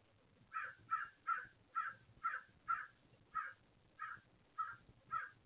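A bird calling outside the nest box: a steady series of about a dozen short calls, roughly two a second, starting about half a second in.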